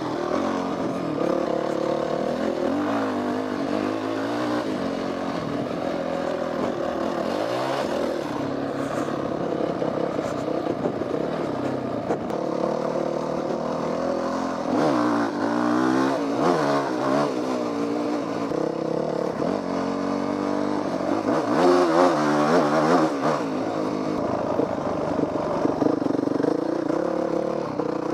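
Yamaha WR450F dirt bike's single-cylinder four-stroke engine running while riding, its pitch rising and falling as the throttle opens and closes, with hard revving twice in the second half.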